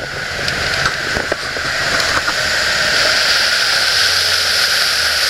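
A 24-foot open runabout underway: a steady rush of wind and water, with the low drone of its 307 Chevy V8 inboard running underneath.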